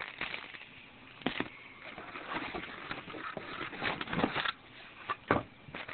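Clear plastic bags crinkling and rustling as packaged accessories are handled, with irregular crackles and a few sharper snaps, one about a second in and one near the end.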